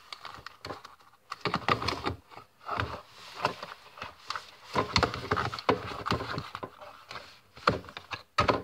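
Scissors cutting into cardboard packaging: an irregular run of sharp snips and clicks mixed with rustling of the box.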